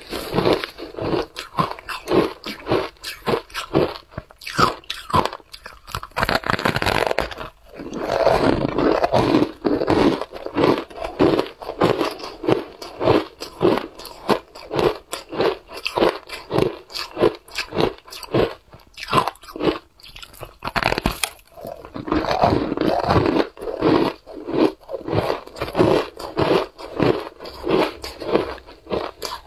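Biting and chewing a block of compacted shaved ice dusted with matcha powder: rapid, crisp crunches, several a second, with no pause.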